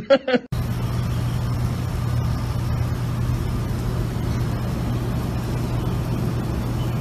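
A loud, steady rushing noise with a constant low hum, cutting in abruptly about half a second in, right after the tail of a man's voice.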